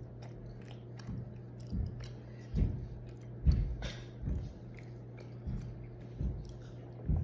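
A person chewing a mouthful of tteokbokki, with soft, wet chewing sounds repeating roughly once a second.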